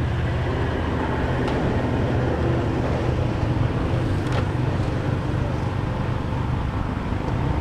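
Four-wheel-drive ute engine idling, a steady low drone.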